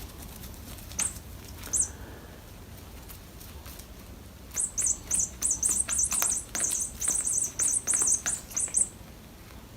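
Short, high-pitched squeaks: two single ones about a second apart, then a fast run of them lasting about four seconds.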